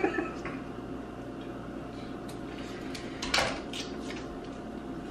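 Quiet handling of gingerbread-house kit packaging on a countertop over a steady room hum: faint clicks, and one short rustle of plastic or cardboard about three and a half seconds in.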